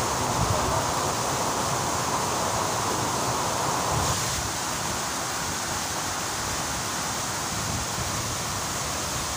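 Waterfall rushing: a steady, dense hiss of falling water, with low gusts of wind on the microphone. The sound drops a little and changes about four seconds in.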